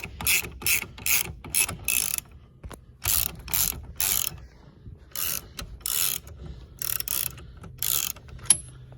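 Socket ratchet wrench clicking in quick repeated back-strokes, about two to three a second with a couple of short pauses, as the 21 mm steering-wheel retaining nut is undone.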